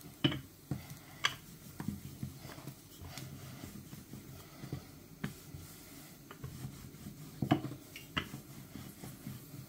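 Kitchen utensils and dishes being handled: about six sharp, irregular clicks and knocks over a faint background, the loudest about seven and a half seconds in.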